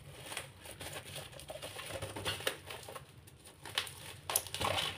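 Plastic mailer bag being handled and opened by hand: irregular light crinkling and rustling, with a louder crackle of plastic near the end.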